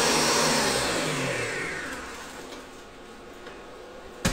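Electric stand mixer whipping egg white, its motor switched off about a second in and winding down with a falling pitch. The egg-white mass is whipped to the stage wanted. A single sharp knock near the end.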